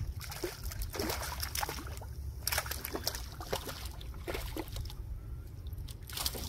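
Hooked redfish (red drum) thrashing at the surface beside a canoe: irregular splashes and sloshing water as it is fought in.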